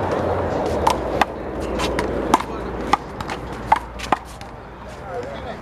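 Handball rally: a hollow rubber handball is slapped by hand and smacks against the wall, about six sharp hits in a quick, uneven rhythm.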